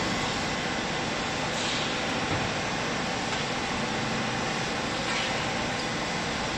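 Steady machine noise from a vertical hydraulic baling press running: a hydraulic pump and motor hum under an even wash of noise.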